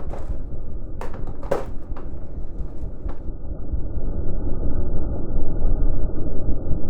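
Snowblower engine running, heard muffled as a low rumble that grows louder in the second half, with a few sharp knocks in the first three seconds.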